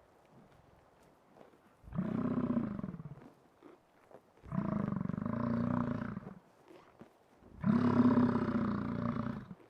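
American bison bellowing: three long, low, rough calls of about one and a half to two seconds each, with short pauses between them.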